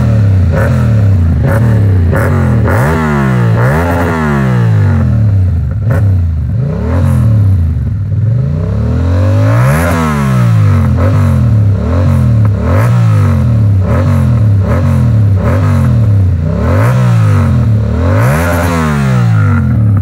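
Yamaha MT-07's 689 cc parallel-twin engine, fitted with an Arrow Works aftermarket exhaust, being revved while standing still. The throttle is blipped over and over, about once a second, and each rev rises and drops back toward idle. A few of the revs run higher than the rest.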